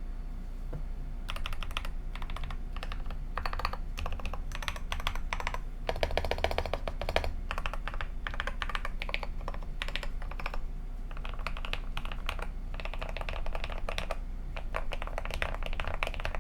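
Mechanical keyboard with lubed KTT Kang White linear switches and YUNZII Cutie Kitty keycaps being typed on in quick bursts of keystrokes, a creamy, thocky sound. The first second is quiet, and a louder, denser run of strokes comes about six seconds in.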